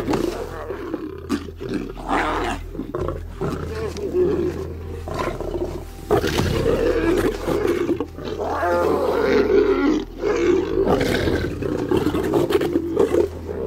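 Desert lions snarling and growling in a scuffle over a kill, as a lioness drives off her sister's hungry cubs. The snarls come as a run of loud, repeated bursts with brief breaks.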